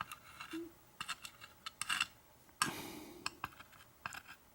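Light metallic clicks and ticks from the small brass pins and parts of a disassembled American 1100 padlock being handled and moved around on a hard surface, with a short rattle about two and a half seconds in.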